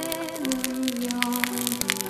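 A slow melody of held notes, with a campfire crackling and popping in frequent sharp clicks over it.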